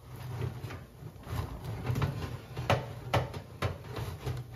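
A metal oven shelf and baking tray being pulled and worked out of the oven, scraping and clinking. There are about half a dozen sharp knocks over the few seconds, with a low rumble of handling between them.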